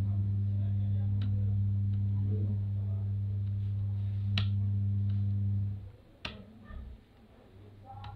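A loud, steady low electrical hum that cuts off suddenly about six seconds in, with several sharp clicks scattered through it.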